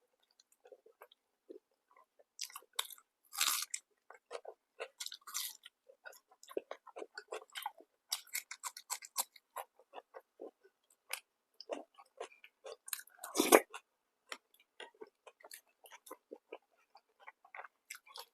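A person chewing and eating food: a run of quick, irregular mouth clicks and smacks, with one louder bite about thirteen seconds in.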